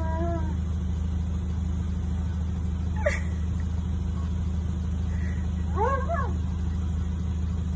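Steady low hum of an idling car, heard from inside the cabin. A sharp click comes about three seconds in, and near six seconds there is a short vocal call that rises and falls in pitch.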